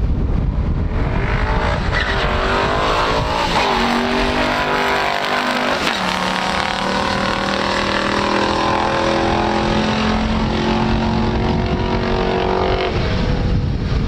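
Two V8 muscle cars, a 440 Six Pack Plymouth Road Runner A12 and an L89 396 Camaro SS, launching and running a quarter-mile drag race at full throttle. The engine notes climb in pitch, fall back twice at upshifts about four and six seconds in, and stop a second before the end. Wind buffets the microphone throughout.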